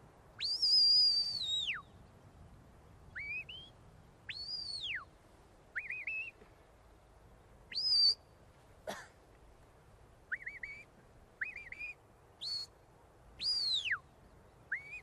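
Shepherd's whistle commands to a working border collie: a string of about a dozen separate high whistles with short gaps between them. Some are long and fall away at the end, some short and rising, and some warbled.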